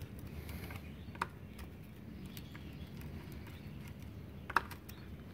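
Screwdriver working a wire's terminal screw on a three-phase magnetic contactor: faint scraping with two sharp clicks, about a second in and near the end.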